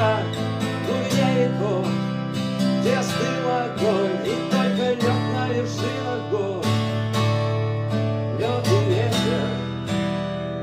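Acoustic guitar strumming chords, with a wavering melody line over them that is either sung or played.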